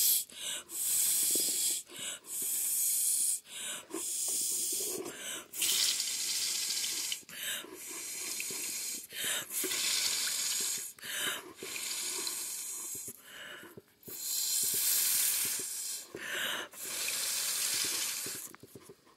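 Air blown hard through a plastic drinking straw across a water surface, rippling it: a rushing hiss in about a dozen blasts of one to two seconds, with short pauses between them.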